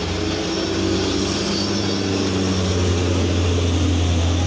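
Heavy vehicle's engine running steadily under load with a deep drone, its pitch shifting slightly partway through, over a steady hiss.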